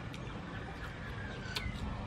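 A few sharp crunches as a piece of crispy fried food is bitten and chewed, over a steady low outdoor background.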